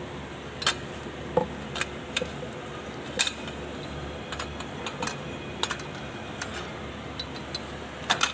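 Irregular light clicks and knocks from a tractor propeller shaft and its coupling being handled, over a steady background hum. The sharpest knock comes about three seconds in, and a quick cluster of clicks comes near the end.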